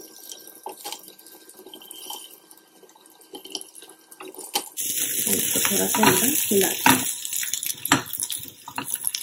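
Zucchini slices being set into a nonstick pan of hot butter and garlic with faint taps, then from about five seconds in a loud frying sizzle, with a silicone spatula clicking and scraping against the pan as the slices are moved around.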